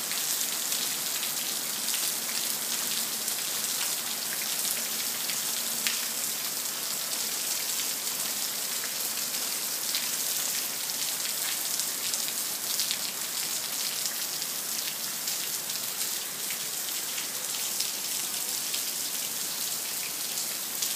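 Heavy rain falling steadily, an even hiss with scattered sharper drip ticks.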